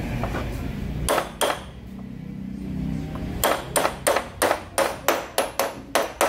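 Hammer tapping on metal power steering pump parts. There are two ringing blows about a second in, then a quick run of about ten taps near the end.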